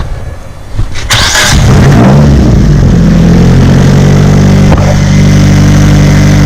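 Nissan SR20DET turbocharged four-cylinder engine started: a short burst of cranking about a second in, the engine catching and briefly rising in pitch, then settling into a steady idle.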